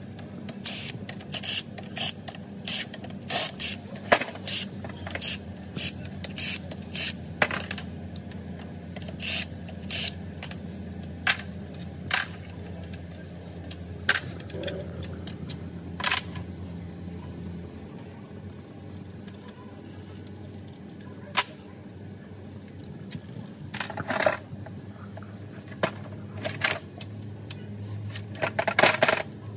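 Metal clinks and knocks of tools, bolts and parts handled on a cast aluminium drivetrain housing in a metal drain pan. A quick run of sharp clicks comes over the first several seconds, then scattered clinks, with a steady low hum that stops about two-thirds of the way in.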